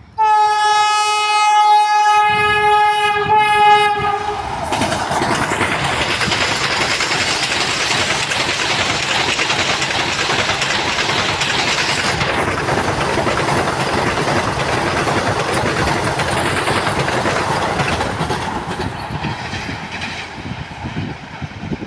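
Vande Bharat Express electric train set sounds one steady horn note for about four seconds, with a brief dip near the end, as it comes through the station without stopping. A loud rush of wheels on rail follows as the train passes, fading away over the last few seconds.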